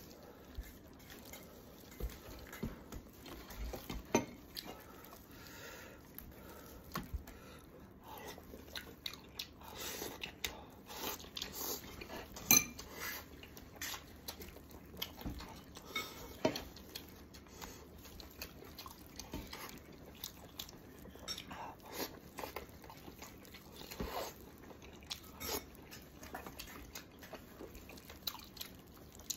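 Gloved hands tearing apart a braised pig's head, the meat squelching in its sauce, with scattered clicks and knocks against the plate and chewing. One knock a little before halfway is much louder than the rest.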